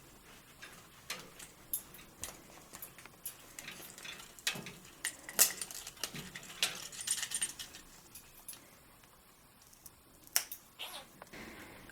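A parrot chewing and tugging at a wood-and-leather chew toy: irregular clicks, knocks and light rattles from its beak on the wooden blocks and the toy's hanging parts, busiest in the middle and sparse for a couple of seconds near the end.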